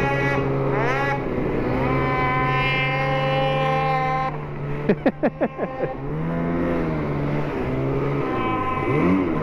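Two-stroke snowmobile engine under hard throttle in deep snow. Its pitch climbs in the first second and holds high, then comes a quick run of short throttle blips about five seconds in, a lower, wavering stretch, and another climb near the end.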